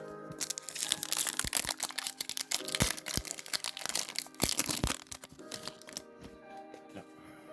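Foil booster pack wrapper crinkling and tearing as it is opened: a dense run of crackles for about five seconds that then eases off. Background music with steady tones throughout.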